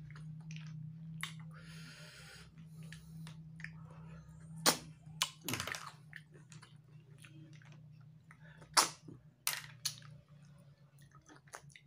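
Eating sounds from a bowl of spicy-sauced freshwater snails (tutut): snail meat being sucked and slurped from the shells, with a string of sharp separate clicks and pops. A steady low hum runs underneath.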